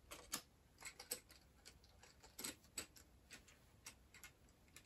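Faint, irregular light clicks and taps of plastic toy train set parts being handled and fitted together.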